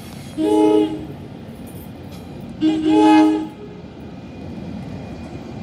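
NJ Transit Arrow III electric train sounding its horn for the grade crossing: two blasts of a multi-tone horn, a short one then a longer one, over the low rumble of the train.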